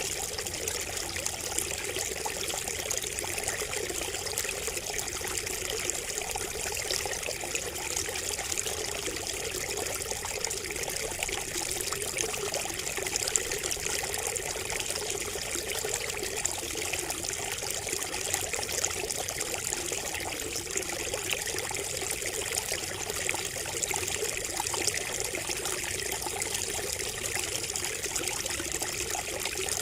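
Water trickling steadily from a bamboo spout, running on without a break.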